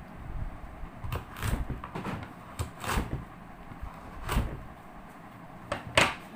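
A series of short, irregular knocks and clatters, the loudest near the end.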